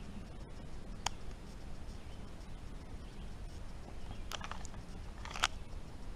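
A few sharp clicks or snaps over a steady low rumble. The first comes about a second in, a quick pair about four seconds in, and the loudest near the end.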